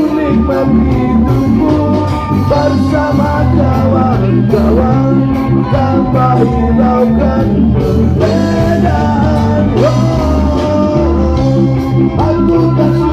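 Music: a song with a singer's voice over a steady band backing.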